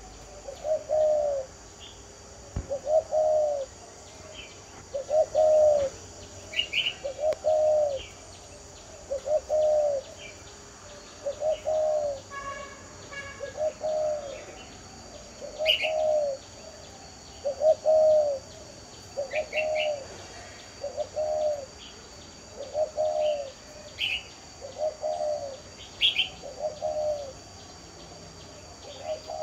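Spotted dove (cu gáy) cooing over and over, a short phrase of two or three arched coos about every two seconds: the "đồng diều" cooing voice that Vietnamese dove keepers prize. Short high chirps of other birds and a steady high insect hiss sit behind it.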